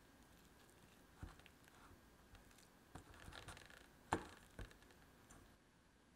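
Silicone spatula working softened butter against a stainless steel bowl: faint squishing and scraping with a few soft taps, the loudest about four seconds in.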